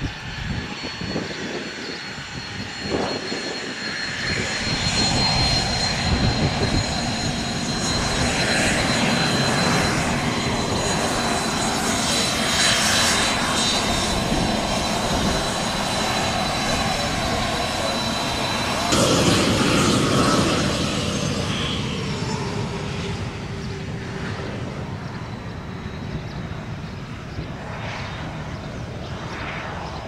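Twin-turbofan business jet (Cessna CitationJet CJ2) rolling out after landing and taxiing: a steady high turbine whine over rushing jet noise that grows louder about five seconds in, holds, then fades in the last third.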